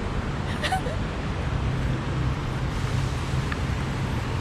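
Steady low rumble of road traffic with a low hum and no break.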